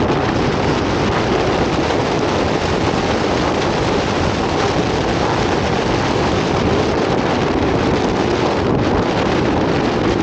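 Strong storm wind buffeting the microphone in a loud, steady rush, over the running noise of a moving vehicle.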